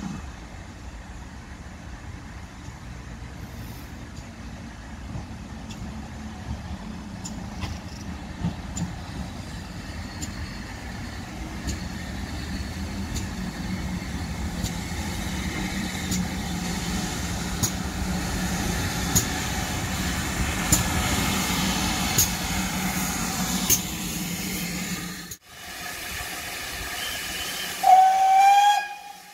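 GWR Manor class 4-6-0 steam locomotive 7820 Dinmore Manor running slowly past a platform: a steady rumble and hiss of steam growing louder, with sharp wheel clicks over the rail joints. After an abrupt cut, a short, loud steam whistle sounds near the end, its pitch rising slightly.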